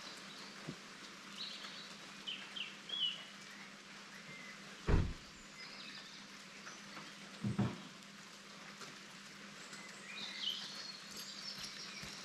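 Small birds chirping in short calls over a steady hiss of light rain, with two dull thumps about five and seven and a half seconds in.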